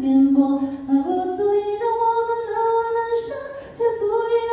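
A high, clear solo voice singing a slow melody, holding long notes that step up and down in pitch, with no clear words.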